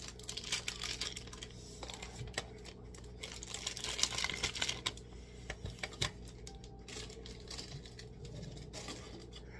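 Irregular light clicks, taps and rustling of things being handled close to the microphone, with a couple of sharper knocks about four and six seconds in, over a steady low hum.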